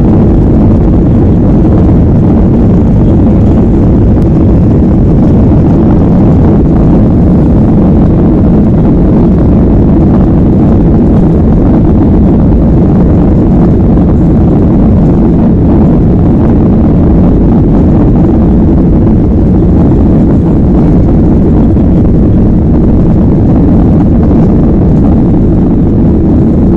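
Boeing 737 airliner's twin turbofan engines at takeoff power during the takeoff roll, heard from inside the passenger cabin as a loud, steady, deep engine noise and rumble.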